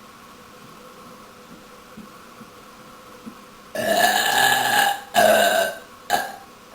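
A woman belching loudly. A long drawn-out burp comes in about four seconds in, then two shorter ones follow quickly, the last very brief.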